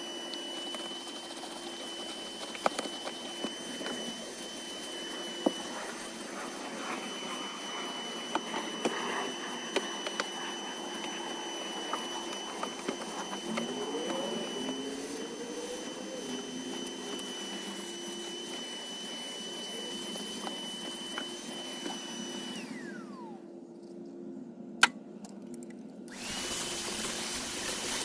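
Vacuum cleaner running with a steady high whine and scattered small clicks. About three-quarters of the way through it is switched off and its whine falls away; a few seconds later it is switched back on.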